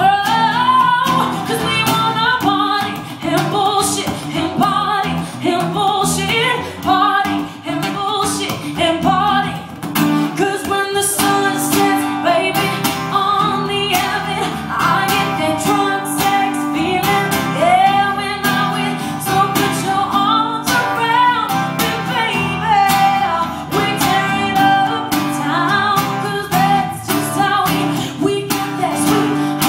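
A woman singing a pop song live, accompanied by a strummed and plucked acoustic guitar.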